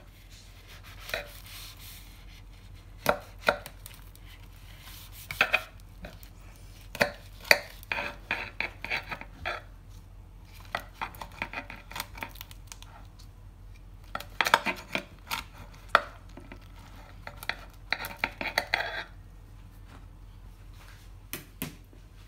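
Large kitchen knife sawing through a grilled French tacos, the toasted tortilla crust crunching in irregular bursts of sharp crackles that stop a few seconds before the end.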